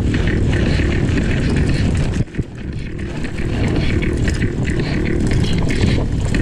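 Mountain bike riding fast over rough dirt, with heavy wind buffeting the microphone and a steady clatter of the bike over the ground. A brief lull comes a little over two seconds in.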